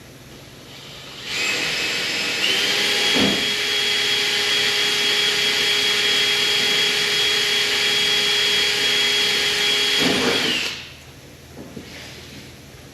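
A handheld power tool running with a steady high whine for about nine seconds. Its pitch steps up about a second after it starts, and it winds down at the end.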